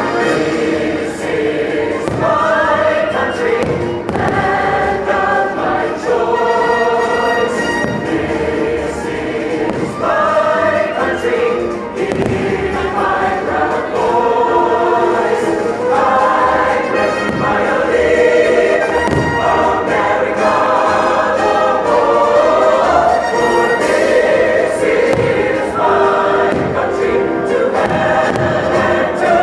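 Choir singing over an orchestral soundtrack from the fireworks show's loudspeakers, with a few low booms of fireworks bursting.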